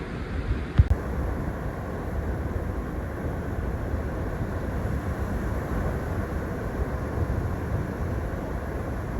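Steady low rumble of wind on the microphone and ocean surf on the beach, with a brief thump about a second in where the sound shifts.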